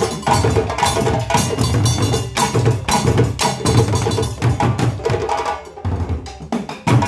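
Live West African drum ensemble: djembes played by hand and tall standing drums struck with sticks, in a fast, dense rhythm. The drumming thins out briefly near the end and comes back with a strong hit.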